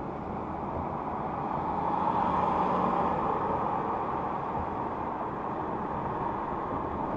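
Steady road and wind noise inside a car's cabin while driving at highway speed, swelling a little about two seconds in.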